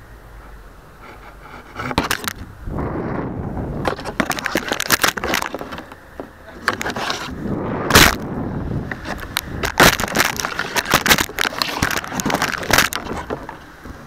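A cardboard airplane carrying a keychain camera tumbling down and crashing through twigs to the snow: a long run of rushing, rattling and scraping with many sharp knocks, the loudest about eight and ten seconds in. The sound stops abruptly after about thirteen seconds.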